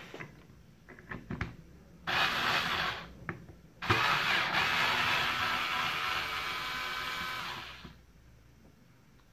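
TECCPO cordless electric screwdriver running in reverse to back out housing screws: a short burst about two seconds in, then a longer steady run of about four seconds with a small motor whine.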